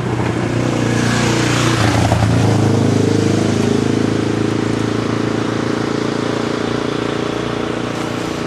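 Motor vehicle engine running. About two seconds in there is a louder swell of engine and road noise, its pitch dipping and rising again as a vehicle passes close, and then a steady engine note holds.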